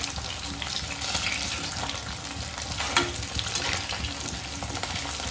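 Cornflour-coated paneer cubes sizzling and frying in hot oil in a kadhai, turning golden, while a perforated metal skimmer stirs them against the pan. There is one sharper knock about three seconds in.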